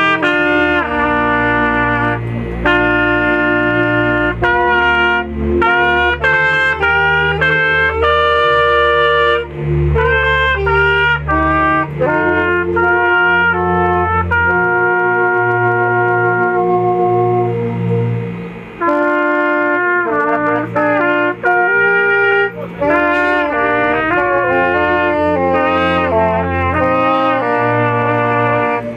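Instrumental music: a trumpet playing a slow melody of long held notes over a bass accompaniment.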